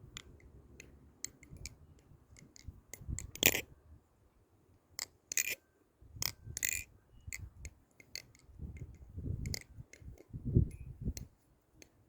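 Butterfly knife, a Krake Raken V3 clone, being flipped: irregular sharp metallic clicks and clacks as the handles swing and strike, with several dull thumps of handling from about nine seconds in.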